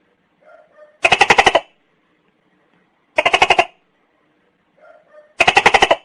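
Tokay gecko calling: three loud syllables about two seconds apart, each a quick rattle of pulses, with a faint short croak just before the first and the last.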